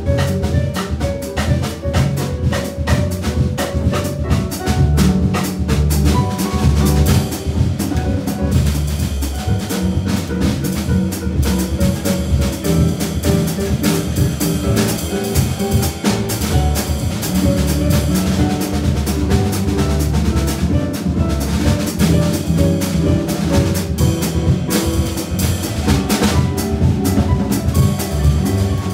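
Live jazz trio of concert harp, upright double bass and drum kit playing together: plucked harp notes over a walking low bass line, with the drums keeping a steady busy beat.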